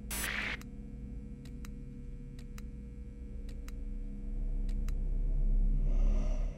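Synthetic logo-sting sound design: a whoosh at the start, then a steady low electronic drone with a faint held tone and scattered sharp glitchy ticks, swelling louder toward the end before cutting off sharply.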